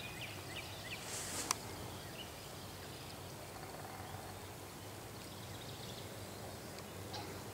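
Faint outdoor background noise with a few scattered distant bird chirps; about a second in, a brief hiss that ends in a sharp click.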